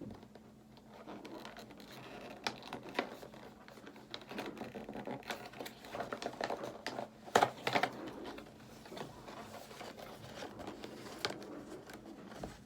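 Packaging for a curling wand being handled and pried open by hand: rustling, scraping and scattered clicks, with a few sharper, louder snaps about seven to eight seconds in.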